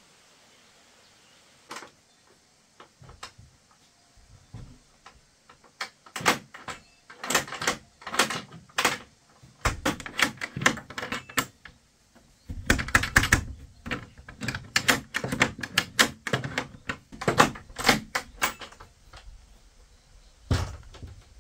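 A series of irregular sharp knocks and clicks, scattered at first, then coming in quick uneven clusters from about six seconds in until near the end.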